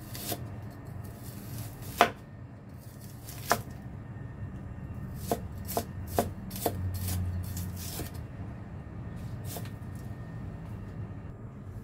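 Cleaver chopping shallots on a wooden cutting board: irregular knocks of the blade striking the board, the sharpest about two seconds in, with a quicker run of strikes in the middle.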